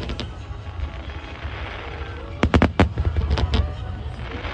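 Fireworks display: a steady low rumble of shells bursting, with a rapid cluster of sharp crackling bangs about two and a half seconds in and a few more just after.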